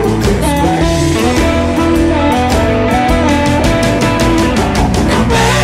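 Blues band playing an instrumental passage with no singing: guitar lines over bass and a steady drum beat.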